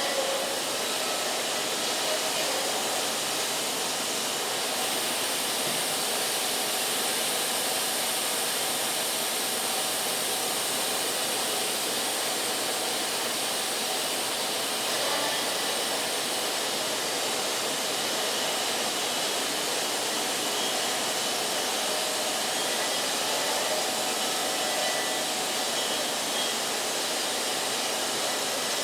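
Wood-Mizer band sawmill running, a steady even rushing noise that does not let up.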